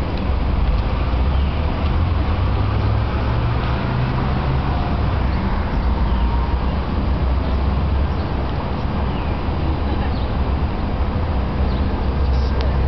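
Steady low rumble of street traffic, even in level throughout.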